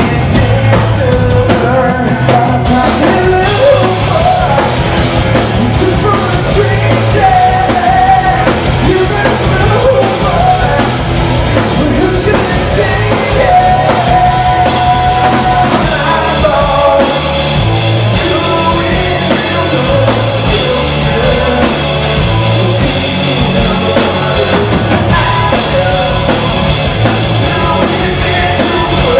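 Live rock band playing loud: electric guitars, bass guitar and drum kit, with a lead vocal sung over them.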